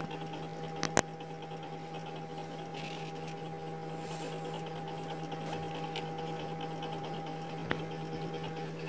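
Chicken boiling hard in ketchup broth in a pot: fine bubbling under a steady hum. A glass pot lid clicks twice about a second in as it is lifted off, and there is one more small click near the end.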